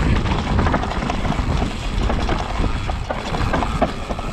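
Specialized Kenevo electric mountain bike riding down a dirt forest trail: tyres running over dirt and roots, with many short rattles and knocks from the bike over the bumps, and wind on the microphone.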